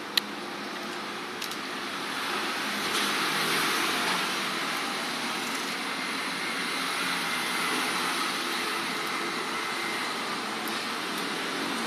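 Steady rushing background noise, with one sharp click just after the start.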